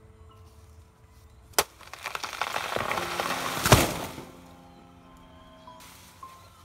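Background music with a sharp crack about a second and a half in, then about two seconds of loud crackling and tearing that ends in a heavy thud.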